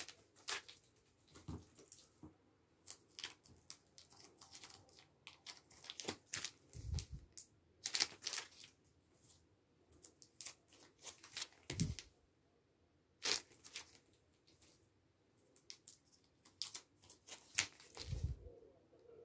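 Vinyl LP record sleeves being handled: quick rustles and crinkles of card and plastic sleeves as records are picked up and held out, with a few soft thumps.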